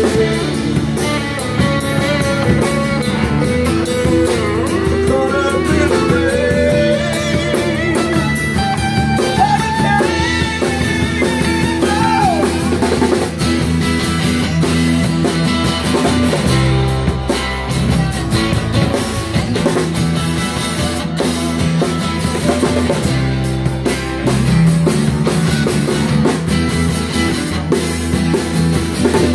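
Rock band playing, with guitar and drum kit. In the first half a lead line of bending, gliding notes runs over the band, and from about halfway the bass end gets heavier.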